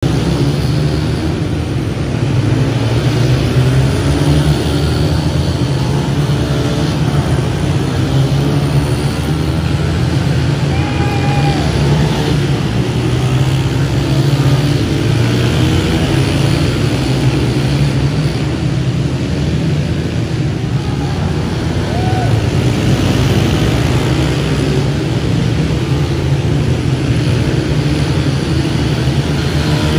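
Several Yamaha YZ125 two-stroke dirt bikes lapping a dirt oval together. Their engines run continuously and overlap, with the sound swelling and easing slightly as riders pass.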